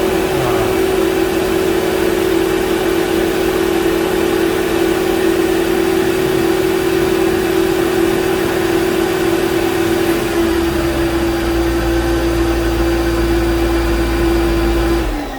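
Mercedes M113 V8 idling with the secondary air pump's steady, vacuum-cleaner-like whine over it. Near the end the pump whine winds down and stops, leaving a much quieter idle.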